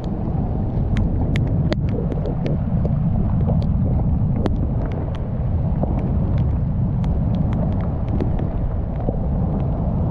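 Steady low rumble of wind buffeting the microphone, with scattered sharp ticks at uneven intervals.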